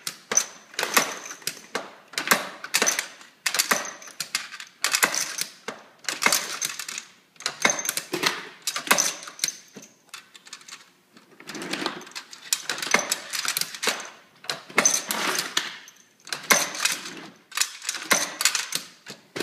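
Metal cartridges and belt links clicking and rattling in quick bursts, roughly once a second, as rounds are stripped from an ammunition belt and fed into a DPM pancake magazine, with a short pause about ten seconds in.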